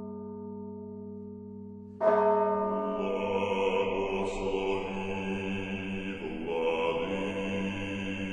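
A church bell rings and fades, is struck again about two seconds in, and about a second later a men's choir begins singing Orthodox chant over the bell's ringing.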